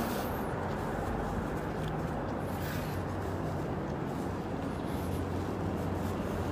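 Steady outdoor street ambience: an even low rumble and hum with no distinct events.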